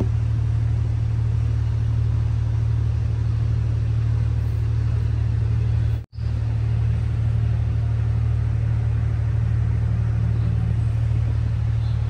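Steady low rumble that cuts out for a moment about six seconds in.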